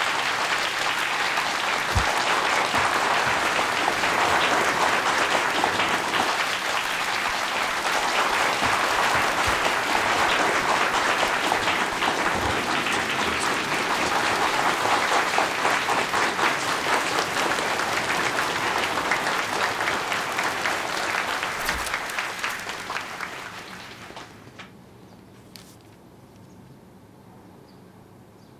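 Audience applauding to welcome a speaker, a dense steady clapping that dies away a few seconds before the end, leaving a quiet room.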